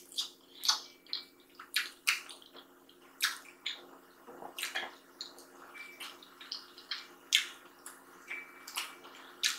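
Close-miked wet eating sounds of sadza and stew eaten by hand: sticky lip smacks and chewing clicks, irregular, about two a second.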